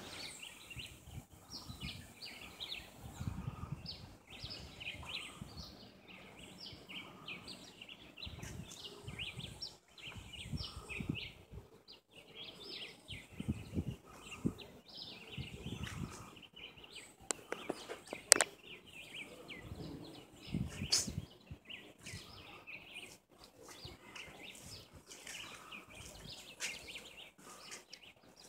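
Many birds chirping and calling in dense forest, a constant scatter of short high notes. Gusts of wind rumble on the microphone now and then, and there are two sharp clicks in the second half.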